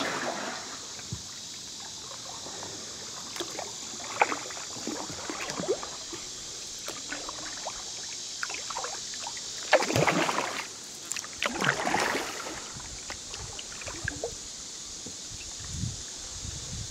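Kayak paddle dipping and pulling through the water, with small splashes and drips and two louder strokes about ten and twelve seconds in, over a steady high hiss.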